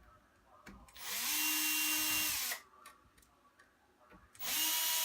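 Electric drill driving a Phillips bit in two runs of about a second and a half each, backing out the small screws of a laptop's screen assembly. Each run is a steady whine that winds up at the start and down at the stop; the second starts near the end.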